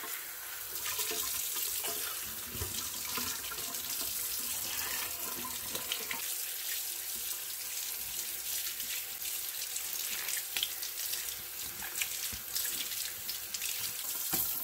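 Kitchen faucet running into an empty metal cat-food can and over its lid as they are rinsed out by hand, water splashing steadily, with a few light knocks.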